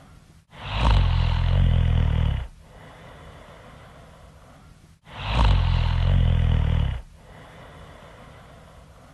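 A woman snoring loudly: two long snores, each about two seconds, about four and a half seconds apart, with a softer breath between them.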